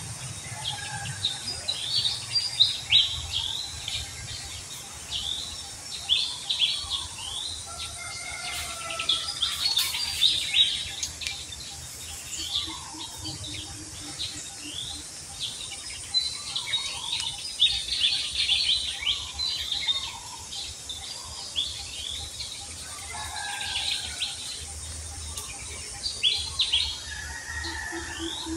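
Many small birds chirping at once, a dense, unbroken run of short, high, falling chirps mixed with a few lower whistled notes. A low pulsing trill sounds twice, about halfway through and again near the end.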